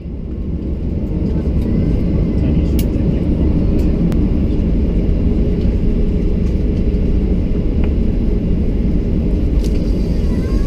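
Cabin noise inside a Boeing 737-800 on the ground: a steady low rumble from the CFM56-7B engines and rolling airframe, building over the first second or so, with a few light clicks and rattles.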